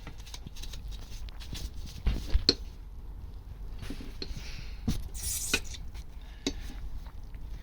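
Scattered knocks and metallic clinks of tools working against a motorcycle engine's aluminium clutch cover as it is worked loose, with two sharper knocks about two seconds in and more near the end.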